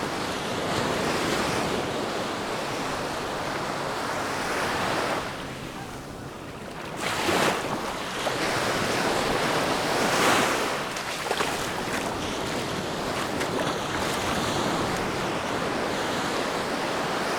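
Mediterranean sea waves breaking and washing up on a sandy beach, the surf swelling and ebbing, with a louder wave breaking about seven seconds in and another about ten seconds in. Wind buffets the microphone.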